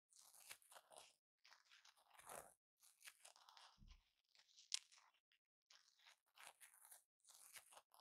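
Velcro hook-and-loop fastener crackling in a series of short, quiet strokes with brief pauses between them, and one sharp click a little past halfway.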